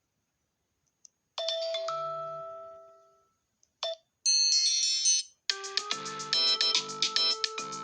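iPhone ringtones playing one after another. After a short silence comes a single chime that rings and fades over about two seconds, then a brief burst of high tones. About five and a half seconds in, a fast, repeating melody starts.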